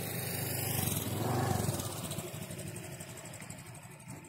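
Electric motor of a radio-controlled airplane buzzing in flight, swelling about a second in and then fading, with wind rumbling on the microphone.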